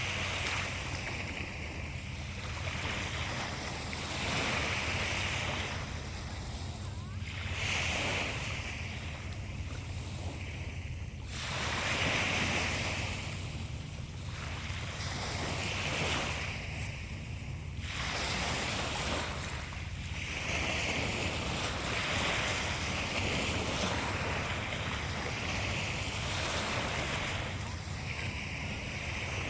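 Sea waves breaking and washing in, the surf swelling and falling back every three to four seconds, over a steady low rumble of wind on the microphone.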